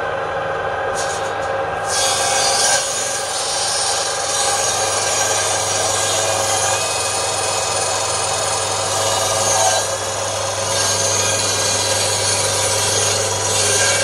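Power table saw ripping lengthwise through a half-round palm log as it is fed along the blade: a steady hiss of cutting over the even hum of the running saw. The cutting sound starts about a second in and eases briefly near ten seconds.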